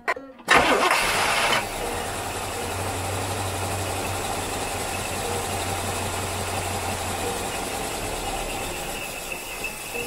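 Carbureted V8 with an Edelbrock carburetor, fitted in a 1964 Rambler American. After a click it fires up about half a second in with a loud burst for about a second, then settles into a steady run.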